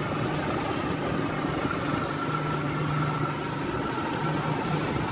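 Boat engine running steadily at trolling speed, an even hum with a low drone and a fainter higher whine, over a haze of wind and water noise.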